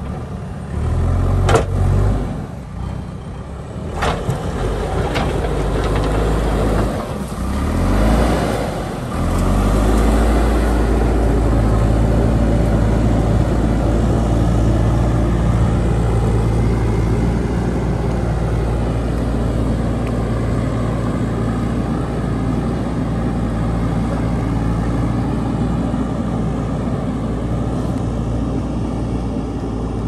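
JCB backhoe loader's diesel engine working under load as the machine pushes and levels dirt and rock with its front bucket. A couple of sharp knocks come in the first few seconds and the engine revs up around the eight-second mark, then it settles into a steady heavy run.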